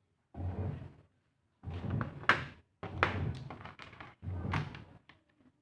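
A series of knocks and thuds in short bursts, with two sharper knocks near the middle.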